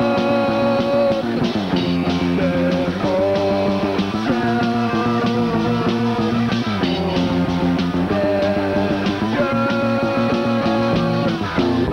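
A live rock band playing, with electric guitar chords over drums and the chord shifting every two to three seconds. It cuts off suddenly at the very end.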